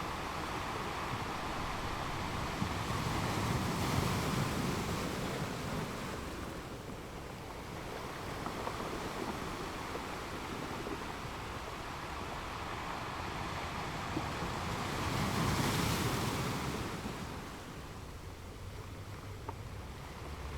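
Ocean waves breaking and washing up a beach, a steady surf with two swells: one builds to about four seconds in, and the other peaks about sixteen seconds in.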